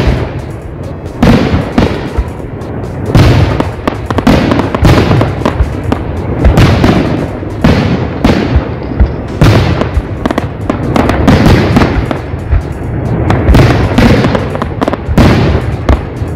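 Aerial firework shells bursting one after another: loud, irregular bangs, often more than one a second, each trailing off in a rumbling echo.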